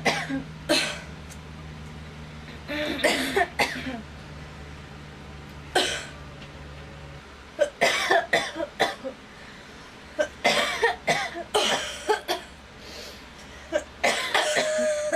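A girl coughing in repeated fits: about six bouts spread through, each a quick run of one to three coughs with short pauses between. A steady low hum underneath stops about halfway through.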